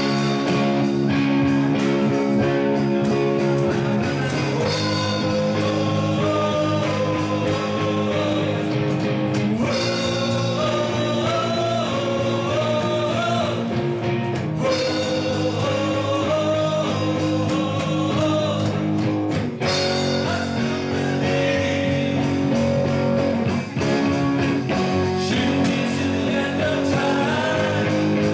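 A live rock band playing: electric guitar and bass guitar with singing over them.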